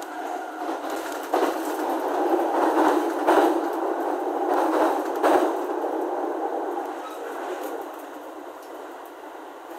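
E231 series commuter train running, heard from inside the carriage: a steady rolling noise that grows louder about a second in, with a few sharp clacks, then eases off near the end.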